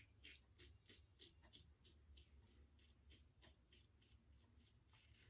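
Rockwell 6S safety razor scraping through lathered stubble in short, quick strokes, about three a second; faint.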